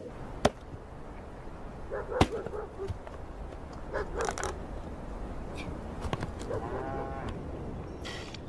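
Cattle lowing in short calls, with two sharp cracks in the first few seconds.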